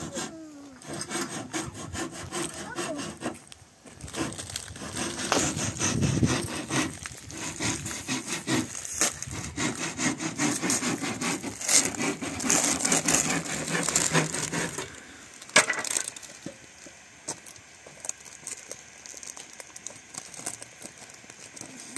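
A hand saw cutting wood in quick, rasping back-and-forth strokes, which stop about fifteen seconds in, followed by a single sharp knock.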